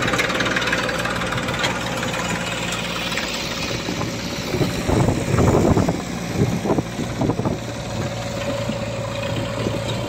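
Massey Ferguson 241 DI tractor's diesel engine running steadily, with a stretch of louder, uneven pulses from about five to seven and a half seconds in.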